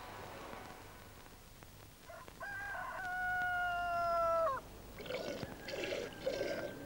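A rooster crowing once: a short rising opening, then one long held note of about two seconds that drops away at the end.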